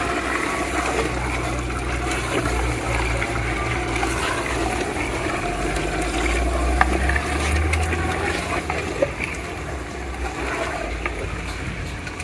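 Chicken pieces sizzling in oil and masala in a clay pot over a fiercely burning stove, a steady frying hiss over a low rumble from the flames, with a few faint clicks.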